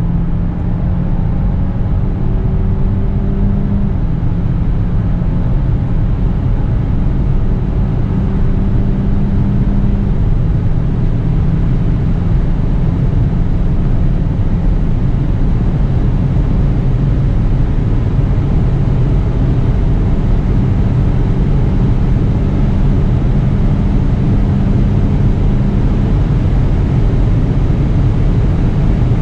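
Peugeot 508 Hybrid's 1.6-litre turbocharged four-cylinder petrol engine under full-throttle acceleration at high speed, heard from inside the cabin. Its drone climbs slowly in pitch and drops at each of three upshifts of the 8-speed automatic, over heavy wind and road noise.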